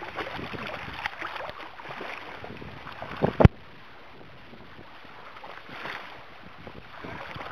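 Wind and water noise around a boat. A little over three seconds in comes a sharp knock, the loudest sound, after which the background drops suddenly to a quieter, even hiss.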